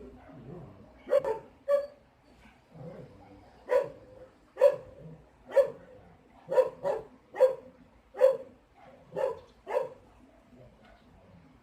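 A dog barking about eleven times, short sharp barks roughly one a second, with a pause of about two seconds after the second bark.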